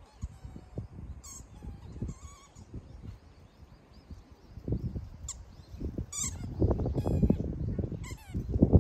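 Wind buffeting the microphone, stronger in the last couple of seconds, with a bird giving short high falling chirps every second or so.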